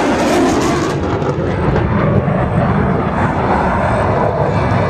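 Loud, steady jet engine noise from a military jet flying at an air show, the sound sliding lower as the jet passes.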